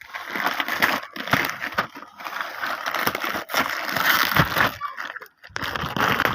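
Toy packaging being opened by hand: crinkling, crumpling and tearing with quick rustles and clicks, pausing briefly near the end.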